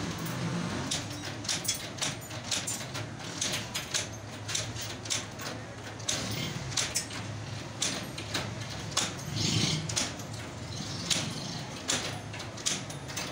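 Hand pliers snipping and bending the steel wire ends along the edge of a wire mesh: a run of sharp, irregular clicks and snaps, a few each second.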